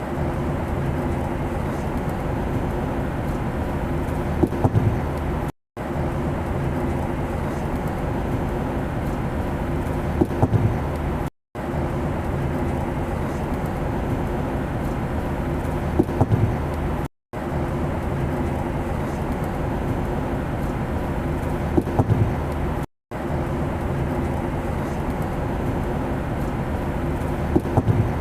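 Steady airplane engine drone with a low hum. A clip of about six seconds is looped: the sound cuts out to silence for a split second roughly every six seconds, with a couple of brief clicks just before each cut.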